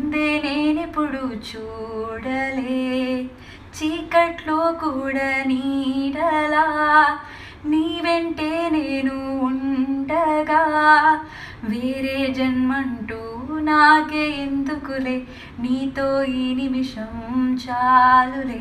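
A woman singing solo, a melody in phrases of a few seconds each with short breaks for breath between them.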